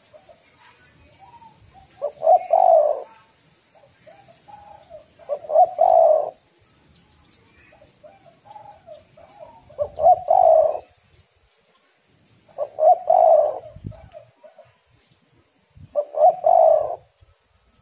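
Spotted dove (tekukur) cooing: five multi-note phrases, one every three to four seconds, each ending in its loudest notes. The uploader presents it as the call of a female in breeding condition, used to lure other tekukur into calling.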